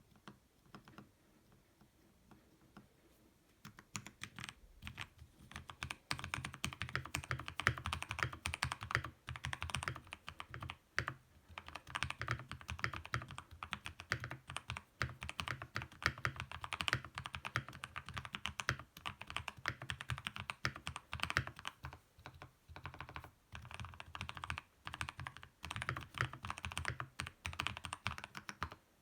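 Typing on a tenkeyless mechanical keyboard with lubed Kailh Speed Copper switches: a few scattered keystrokes at first, then fast continuous typing from about five seconds in.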